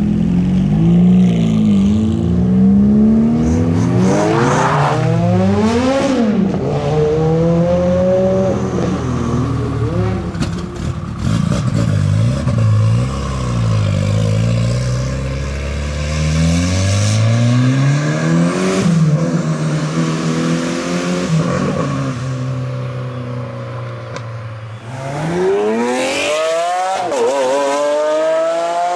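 High-performance car engines revving and accelerating away, their pitch climbing and dropping through several gear changes. A strong rising run near the end is the loudest.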